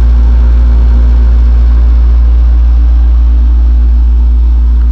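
Window-type air conditioner running with a loud, steady low hum.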